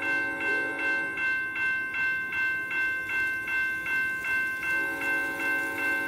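Recorded grade-crossing bell played through a KATO Unitrack sound box, dinging evenly about two and a half times a second. Under it a locomotive horn chord is sounding; it breaks off about half a second in and comes back near the end.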